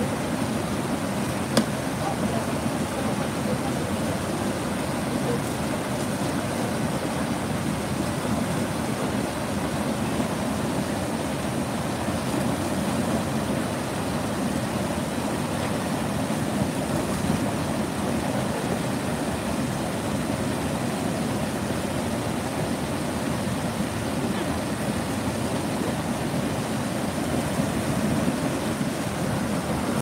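Water pouring over a concrete dam spillway and churning in the pool below: a steady rush. A single sharp click sounds about a second and a half in.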